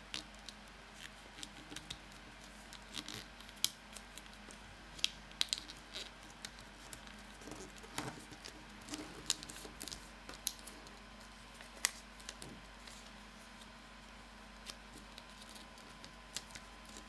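Thin origami paper being folded and creased by hand on a wooden table: irregular sharp crackles and crinkles as the folds are pressed flat, with light taps of fingers on the table.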